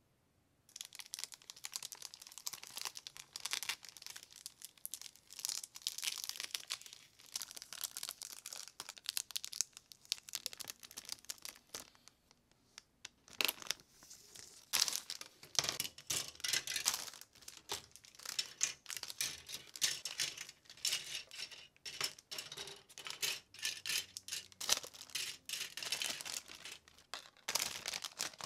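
Clear plastic parts bags crinkling as they are handled to unpack a plastic model kit's parts, with a short lull about halfway through.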